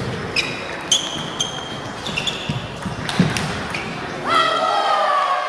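Table tennis rally: the ball clicks sharply off the bats and the table in a quick back-and-forth, each hit ringing briefly. About four seconds in, a voice cries out in one long, slightly falling shout.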